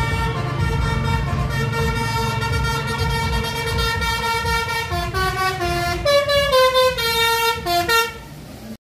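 A bus's multi-tone musical air horn of the Indonesian 'telolet' kind, over the bus's engine as it drives past. The horn holds one chord for about five seconds, then plays a quick run of changing notes. The sound stops abruptly near the end.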